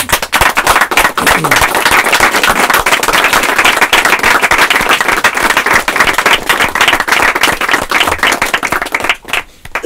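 Audience applauding at the end of a reading: a few scattered claps build quickly into dense, loud clapping, which thins to a few last claps near the end.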